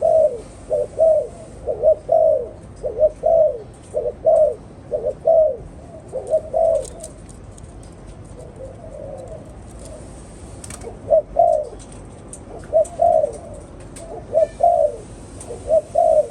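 Spotted dove cooing: runs of quick, repeated coo notes, a pause of about four seconds midway, then the cooing starts again.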